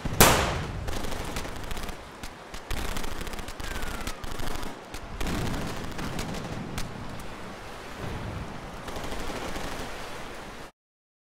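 Battle sound effects of gunfire: one loud shot right at the start, then scattered single shots over a rumbling, noisy background. The sound cuts off suddenly near the end.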